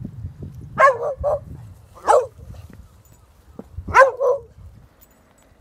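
A dog barking: five short barks, a pair, then a single, then another pair.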